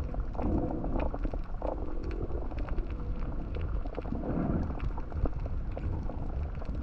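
Underwater ambience as heard by a camera below the sea surface: a steady low rumble with scattered sharp clicks and crackles, and two muffled whooshing swells, about half a second in and again about four seconds in.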